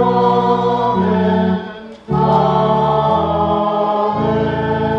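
Sung threefold Amen: a congregation singing sustained chords over steady instrumental accompaniment, in three phrases with a short break near two seconds in, the last chord held.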